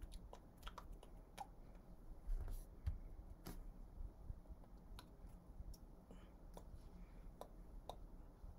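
Faint scattered clicks and soft taps, with two duller thumps a little over two seconds in, from a man's hands and body moving as he signs in sign language in a small quiet room.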